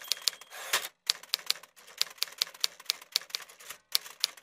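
Keys being typed: quick runs of sharp, irregular clicks with short pauses between them, and a brief rustling burst just under a second in.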